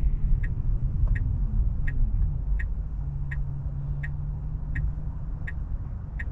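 Tesla Model 3 turn-signal indicator ticking steadily, about one and a half clicks a second, over cabin road noise. A low whine falls in pitch about a second in, as the car slows.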